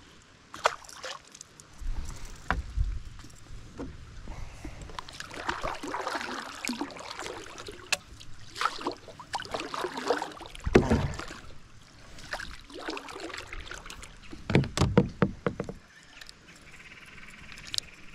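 Water splashing at the side of a plastic fishing kayak, with scattered knocks and a few dull thumps against the hull as gear and a fish are handled.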